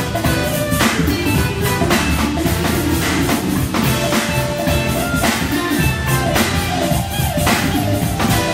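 Live band playing an instrumental number: electric guitar and Hammond B3 organ over drums, with sharp cymbal-like hits every second or two.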